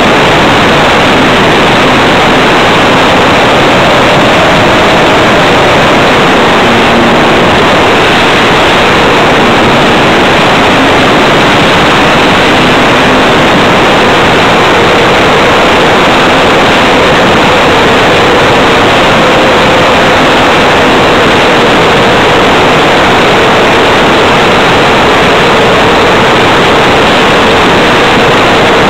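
Loud, steady noise of an RC model Tiger Moth's motor and propeller with wind rushing past, picked up by a microphone on board the plane, with a faint tone that wavers slightly in pitch.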